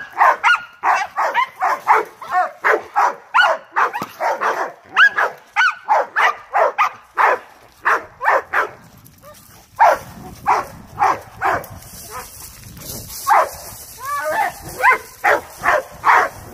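Young dog, eight months old, barking over and over in quick short barks, about two a second, with a couple of brief pauses. These are agitation barks from a tethered dog during bite-work training.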